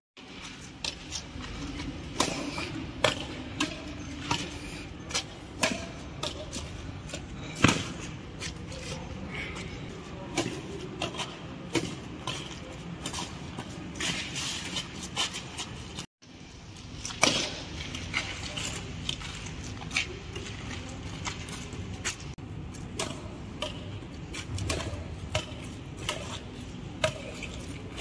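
Badminton rackets hitting a shuttlecock back and forth in rallies: sharp, irregular hits a second or two apart, with a brief break about two-thirds of the way through.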